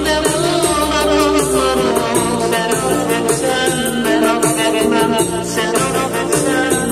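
A man singing into a handheld karaoke microphone over a backing track of music with steady shaker-like percussion.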